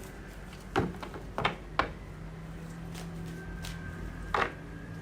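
Tarot cards being handled and laid down on a table: short sharp slaps and slides of card on the surface, three in quick succession in the first two seconds and one more near the end, over a faint steady hum.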